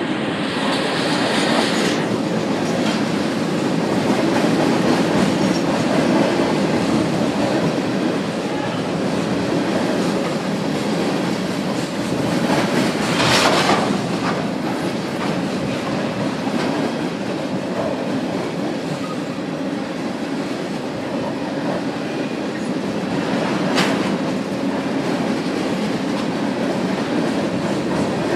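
Freight train cars rolling steadily over a trestle bridge, a continuous rumble with the clack of wheels on rail joints. Twice, about halfway through and again near the end, there is a brief louder sharp burst of noise.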